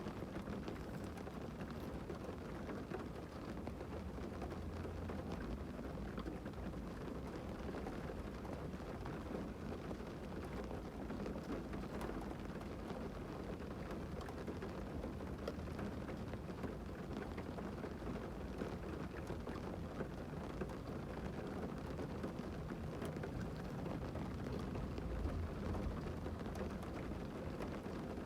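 Heavy rain falling on a parked car, heard from inside the cabin: a steady hiss of rain with many small taps of drops.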